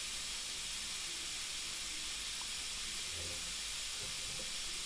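Steady, even hiss of background recording noise, with no other sound.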